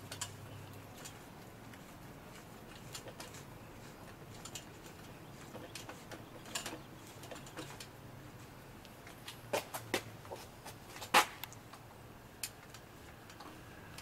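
Light clicks and taps of suspension fork parts being handled, spread unevenly, with a few sharper clicks later on and the loudest one about eleven seconds in.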